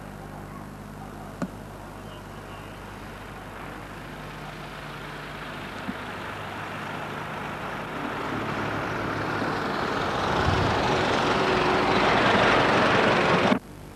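Ford Model T, with a modern car close behind, driving up and passing close by: its engine and road noise grow steadily louder over the last several seconds, then cut off abruptly. A steady low hum runs underneath.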